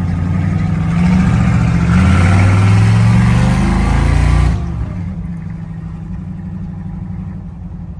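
1973 GMC pickup's engine pulling under acceleration, its revs rising steadily, then the throttle comes off suddenly about four and a half seconds in and it drops to a lower, steady run.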